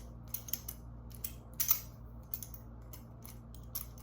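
A balisong (butterfly knife) being flipped: its metal handles and blade clack against each other in a string of sharp, irregular clicks. The loudest clack comes about a second and a half in.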